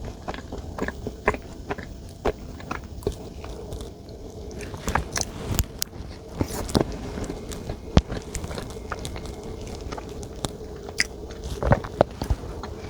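Close-miked eating: a person biting and chewing chocolate desserts, with many short, sharp crunchy clicks at irregular intervals.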